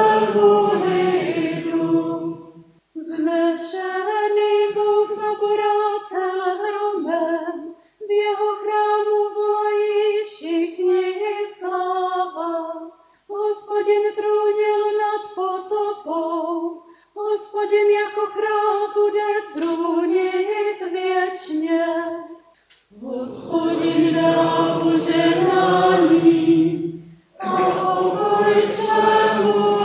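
Responsorial psalm sung unaccompanied in Czech: a solo voice sings the psalm verse in several short phrases, then near the end the congregation joins in the refrain in two phrases.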